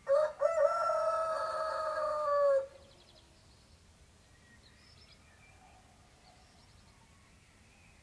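Rooster crowing once: a cock-a-doodle-doo of about two and a half seconds with a short break near its start, cutting off sharply. It is followed by a few faint, brief bird chirps.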